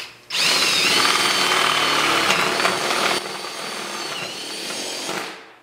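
Cordless drill with a larger-diameter bit boring through a camper's aluminum-skinned sidewall. The motor spins up with a whine about half a second in and runs steadily under load. It drops in level about three seconds in, then winds down near the end.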